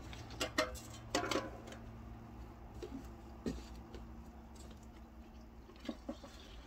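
Plastic jerry can knocking and clunking as its spout is worked in the engine's fuel tank and the can is tipped up and lifted away: a cluster of sharp knocks in the first second and a half, a few single clunks later, over a low steady rumble.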